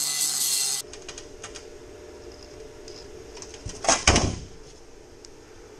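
Angle grinder grinding thick steel with a loud, even hiss that stops abruptly under a second in. After that come a few light clicks of handling, then one loud knock with a brief rattle about four seconds in as the steel bar is set against a speed square.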